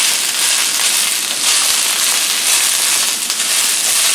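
Strips of summer squash sizzling in hot olive oil in a frying pan while being stirred continuously, a steady hiss with a few light clicks from the stirring.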